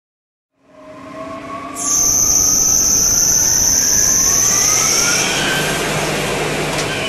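Lathe starting up for a grooving cut: a motor whine rising in pitch as it speeds up, and a loud steady hiss joining it about two seconds in.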